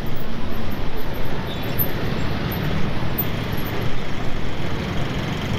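Steady road traffic noise: a dense, even rumble with no single event standing out.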